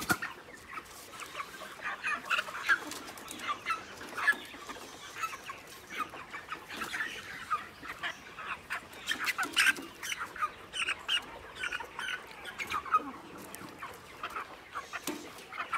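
Broiler chickens clucking in many short, irregular, overlapping calls.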